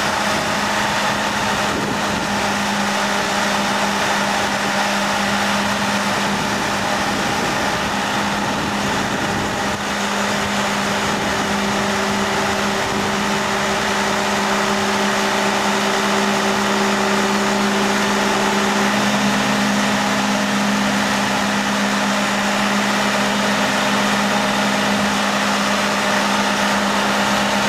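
Engine of the hoist lifting a boat out of the water, running steadily with a constant hum. A higher tone joins about ten seconds in and drops out a little past the middle, where the pitch of the running shifts slightly.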